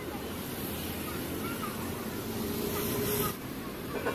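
Street background noise: a steady rumble of traffic with faint voices, changing abruptly about three seconds in.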